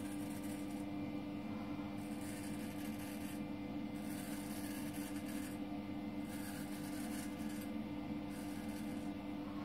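Thiers Issard straight razor scraping through lathered stubble in about four strokes, each a second or so long, over a steady low hum.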